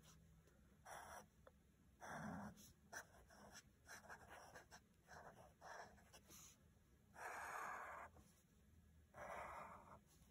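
Fine-tip marker drawing on sketchbook paper: a run of faint, short scratchy strokes as a drawing is outlined in ink, with two longer strokes in the second half.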